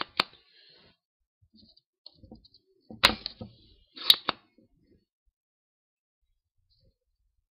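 A sharp click just after the start, then two louder sharp snaps about three and four seconds in, from desoldering hand tools being handled at a circuit board.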